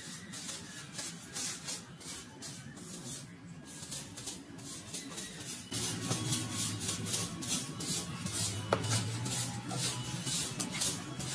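Repeated rough scraping strokes, about three a second. A low steady hum joins about six seconds in.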